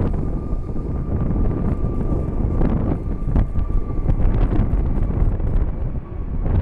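Strong gusty wind buffeting the microphone, a heavy low rumble that swells and flutters, with a faint steady whine underneath that fades out about five and a half seconds in.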